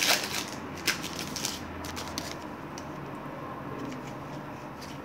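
A stack of 2020 Stars & Stripes baseball cards being thumbed through, cards flicking and sliding against each other. There are a few crisp flicks in the first second and a half, then only light handling.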